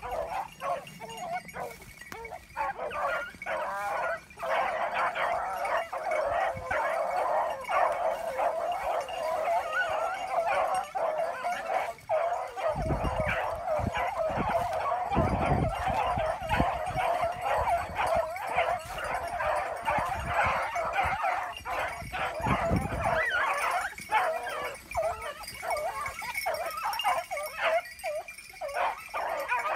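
A pack of scent hounds giving tongue together, overlapping yelping and baying calls that run on without a break, the cry of running hounds working a rabbit's scent. A low rumble on the microphone comes and goes in the middle.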